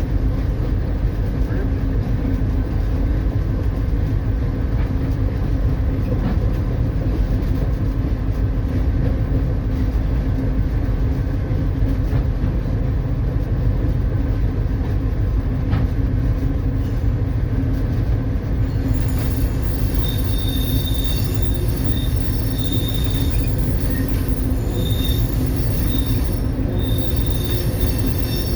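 A locomotive-hauled work train running along the track with a steady low rumble. From about two-thirds of the way in, a high-pitched wheel squeal comes and goes over it.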